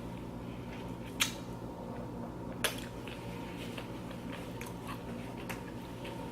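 Crunching tortilla chips while eating loaded nachos: two sharp crunches, about a second in and again a second and a half later, followed by softer chewing clicks.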